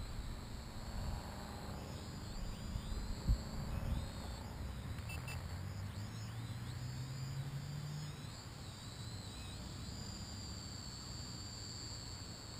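Faint high whine of a Propel Cloud Rider quadcopter's motors flying overhead, the pitch wavering up and down as the throttle changes, over steady outdoor background noise. One soft bump a few seconds in.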